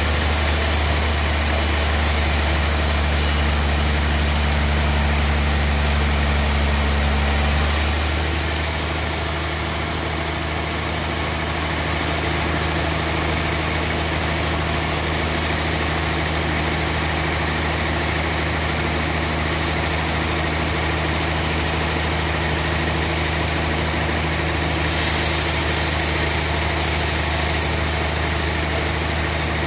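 Band sawmill running: a steady low motor hum under blade and machine noise. The sound shifts about eight seconds in, when the low hum drops, and again near the end.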